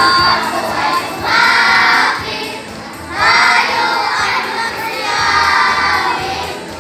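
A group of children singing a carol together in loud phrases about a second long, with short breaks between them.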